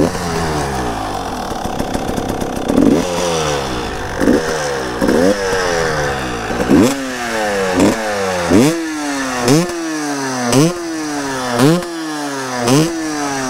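KTM 300 TPI two-stroke single-cylinder engine revved in repeated throttle blips, each rev shooting up quickly and falling back slowly. The blips come a second or more apart at first, then settle to about one a second.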